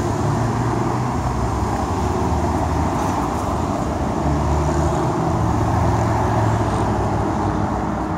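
Road traffic: car engines running as several cars drive past close by, with steady road noise.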